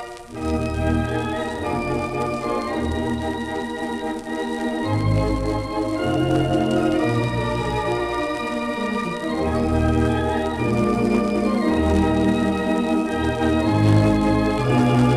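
Standaart theatre pipe organ (three manuals, ten ranks) playing a medley of old popular songs: sustained chords over deep pedal bass notes, with a short break just after the start, heard from a 1933 78 rpm record.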